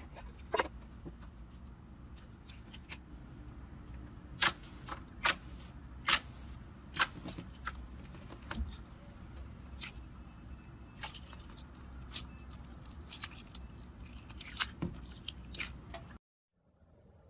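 Slime being squeezed and pressed by hand, giving irregular sharp popping clicks over a faint steady low hum, stopping abruptly near the end.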